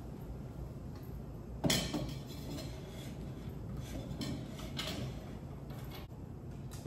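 Tumblers being handled and set down on a kitchen shelf or counter: one sharp knock about two seconds in, then a few lighter taps and clinks.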